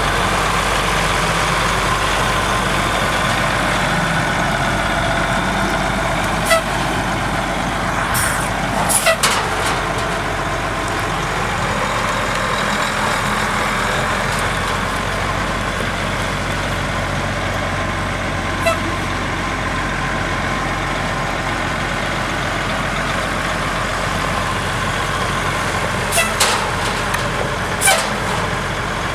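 Ford L8000 truck engine running steadily at low speed, with a few brief sharp clicks.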